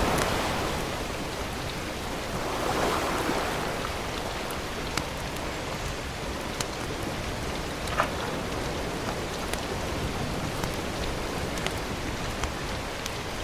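Steady wash of wind and lapping water at the shore, swelling every few seconds, with scattered small sharp clicks.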